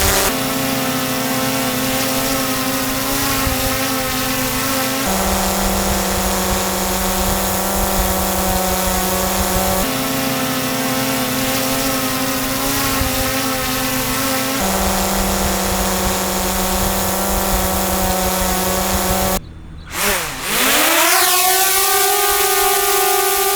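Propeller hum of compact DJI quadcopter drones hovering, the DJI Mini 3 Pro among them. The sound switches back and forth about every five seconds between two drones' steady hums, one a little lower in pitch than the other. Near the end it cuts out briefly, swoops down and back up in pitch, and settles into a higher steady hum.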